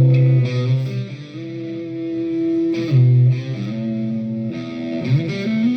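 Electric guitar played through a Donner Arena 2000 multi-effects processor: a handful of sustained single notes picked one after another, the pitch changing every second or so.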